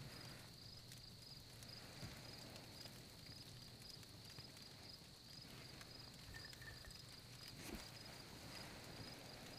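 Near silence: faint, steady cricket chirping, with a low hum beneath it.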